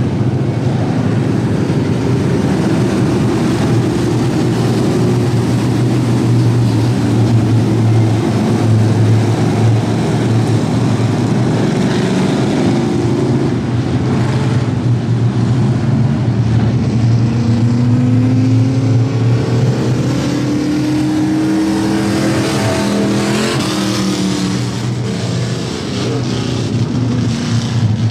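A field of dirt-track street stock race cars running together: a steady, loud engine drone, with several engines rising and falling in pitch through the second half as cars pass and accelerate.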